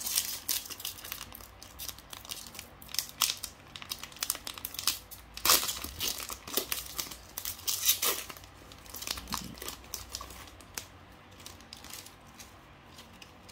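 Foil Pokémon booster-pack wrapper crinkling and crackling as it is handled and torn open by hand. The sharpest, loudest crackles come about halfway through.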